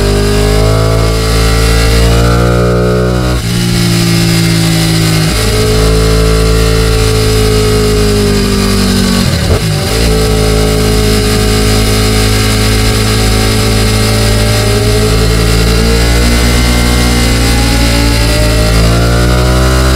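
Ducati Panigale 899's V-twin engine under way, its pitch climbing and dropping off at each gear change, with a sharp break about halfway through, then pulling slowly higher toward the end. Wind rushes over the helmet-mounted microphone throughout.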